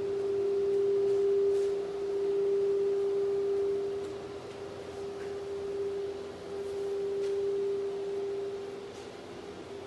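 Spindle of a 1325 ATC CNC router running with a steady single-pitched whine that swells and fades in loudness, with a few faint ticks.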